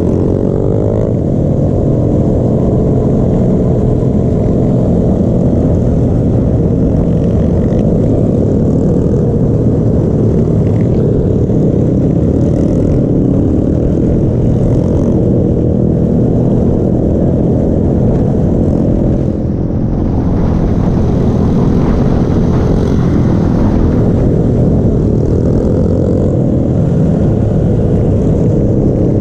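Several pit bikes' small single-cylinder engines running together in a steady, loud drone while riding, with wind noise on the bike-mounted microphone. The sound gets noisier and brighter for a few seconds about two-thirds of the way through.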